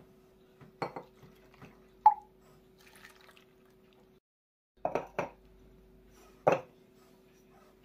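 Water poured from a small glass into clay pots, with a few clicks and drips and one sharp plop about two seconds in. Near the end, a few short clinks as glazed ceramic lids are set on the pots.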